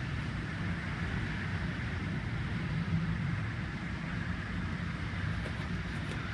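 Hurricane wind and driving rain blowing steadily, a constant hiss over a heavy low rumble of wind buffeting the microphone.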